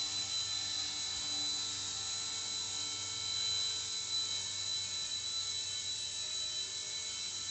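XK K127 micro RC helicopter in flight, its electric motors and spinning rotors giving a steady high-pitched whine.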